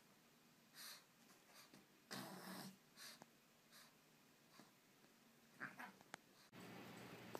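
Mostly near silence with a few faint, short breathy and scuffling noises from a small long-haired dog and a cat play-fighting on a couch. Near the end a louder steady hiss sets in suddenly.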